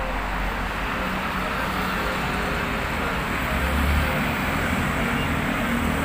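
City road traffic: cars and vans driving past, a steady rumble of engines and tyres, with a heavier low rumble from a passing vehicle about four seconds in.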